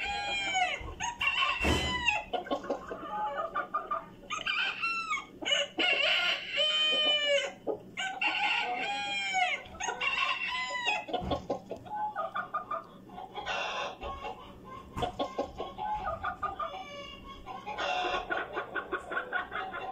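A flock of chickens calling: roosters crowing over and over, their calls overlapping mostly in the first half, and hens clucking in quick runs of short notes through the rest.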